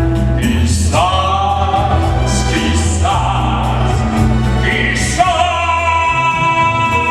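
A singer holding long notes over backing music, a new note about every two seconds, the last one held for about two seconds.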